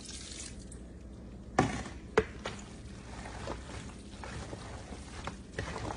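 Banana pepper juice pouring from a plastic jar onto pasta salad, with two sharp knocks about one and a half and two seconds in. A spoon then stirs and scrapes through the pasta in a plastic tub, with small clicks.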